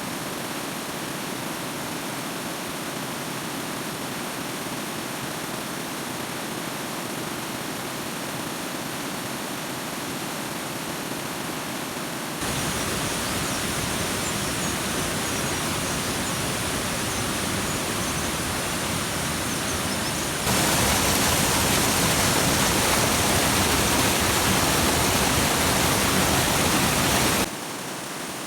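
Steady rush of flowing water, as from a stream or waterfall. It jumps abruptly louder and fuller about halfway through, louder again a few seconds later, and drops back shortly before the end.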